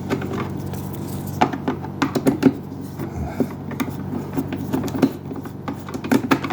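Screwdriver working a screw out of the plastic base of a Keurig K-Supreme coffee maker: irregular clicks, scrapes and knocks of metal on hard plastic as the upturned unit is handled, over a low steady hum.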